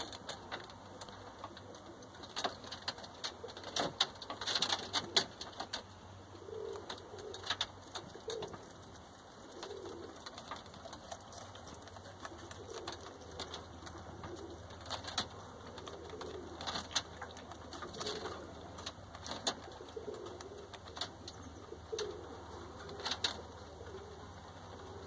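Agouti rabbits eating strawberries on a wire-mesh hutch floor, giving scattered sharp clicks and crunches, the loudest about four to five seconds in. Behind them, pigeons coo softly and repeatedly, about once a second, through most of the clip.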